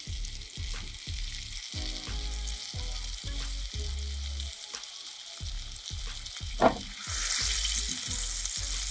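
Flour-dredged dace frying in hot oil in a pan: a steady sizzle that grows louder about seven seconds in, with one brief, sharp sound just before.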